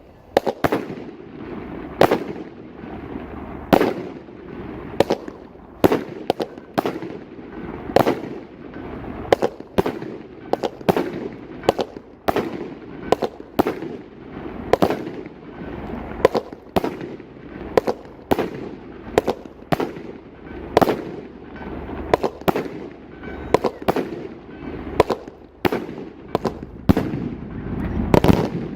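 Consumer fireworks firing a long sequence of shots, a sharp bang about every half second to second, with continuous crackling between them.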